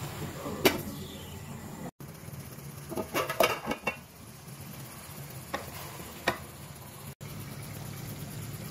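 A wooden spatula knocks and scrapes against an aluminium cooking pan: one knock under a second in, a quick cluster around three seconds, and two more near six seconds. Under them runs a steady low bubbling of simmering chicken gravy.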